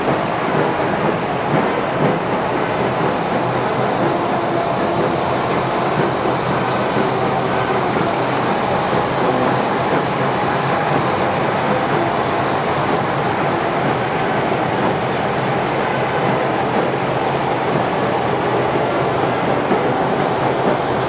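A column of tracked armoured vehicles driving past, a steady, continuous din of engines and clattering tracks.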